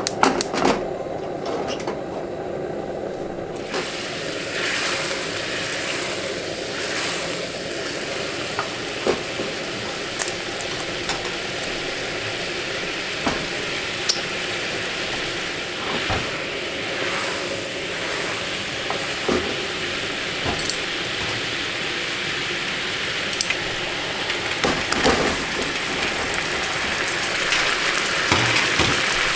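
Chicken meatballs (tsukune) sizzling steadily in a hot pan, the hiss building about four seconds in, with a few light clicks of a utensil against the pan.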